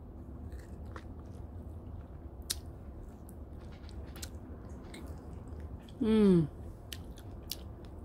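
A person chewing a ripe strawberry, with soft wet clicking mouth sounds. About six seconds in comes a short falling 'mmm' of enjoyment, the loudest sound.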